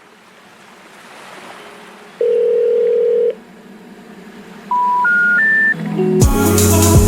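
Telephone ringback tone: one long, steady beep. It is followed by three short beeps, each higher than the last, the special information tone that signals a call cannot be completed. Music with a heavy bass then starts about six seconds in.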